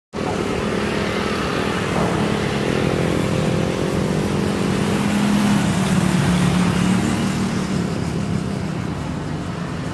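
A steady engine drone with a low hum, swelling slightly about halfway through.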